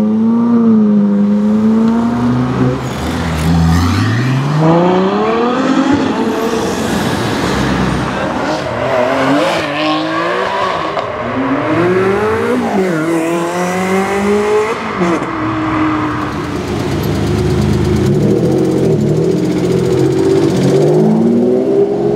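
Ferrari supercar engines revving and accelerating hard, the pitch climbing and then dropping back at each gear change, several times over in back-to-back clips. The first is a 458 Speciale's V8 pulling away.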